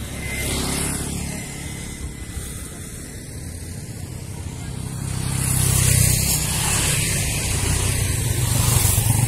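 Motor vehicle engine running steadily under a rushing noise, both growing louder about five seconds in.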